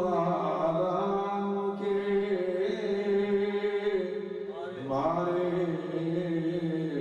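A man's voice chanting salawat, blessings on the Prophet, in long drawn-out melodic notes: one held phrase of about four and a half seconds, a short break, then a second held phrase.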